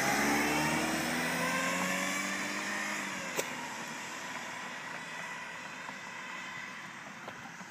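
A car driving off and fading away, its engine note dropping in pitch as it moves off, with a single click a few seconds in.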